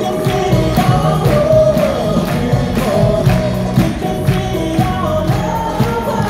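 Live stage music: a group of voices singing together over a steady, fast percussion beat with jingling tambourine-like shakes.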